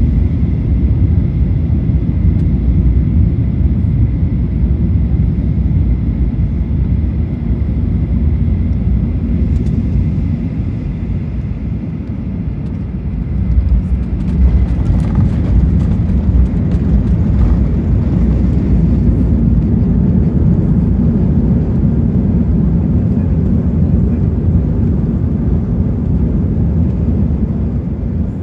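Cabin sound of a Boeing 737-900 landing: a steady rumble of the engines and airflow with a thin high whine on it. About 14 seconds in comes the touchdown, with a thump and a spell of cabin rattling. A louder rumble follows as the jet slows on the runway, easing near the end.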